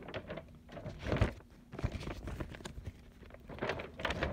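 Irregular handling noise: paper rustling and crinkling with light knocks, as a folded paper poster is moved about and turned over.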